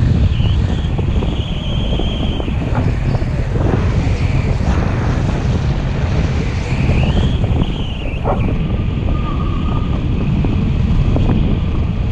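Wind from the airflow of a paraglider in flight buffeting the camera microphone: a loud, steady low rumble, with a few thin high tones coming and going.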